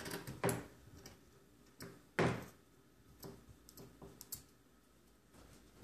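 Scissors snipping through the fabric of a pair of boxer briefs: about six short, sharp cuts at irregular spacing, the loudest a little over two seconds in.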